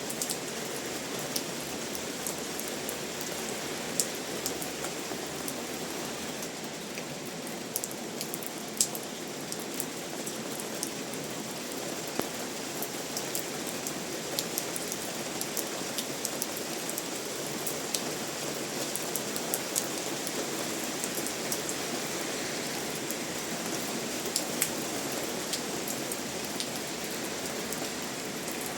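Steady rain falling, with scattered sharp drips and drop ticks against a continuous hiss.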